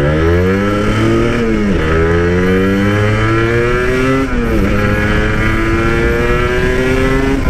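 Two-stroke motorcycle engine with a stock exhaust, accelerating through the gears: its pitch climbs steadily, drops at an upshift just under two seconds in and again a little past four seconds, then climbs again.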